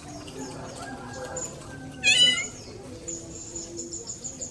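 A bird's quick high chirps in a rapid series, and about two seconds in a single loud, wavering mewing call.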